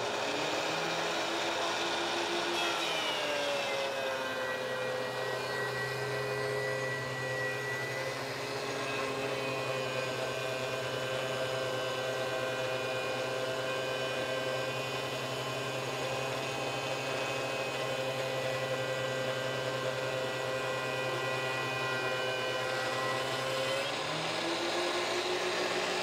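DeWalt DW735 thickness planer with a helical carbide cutterhead running steadily and planing a board. Its pitch sinks a few seconds in as the board is taken into the cut and climbs back near the end as the board comes free.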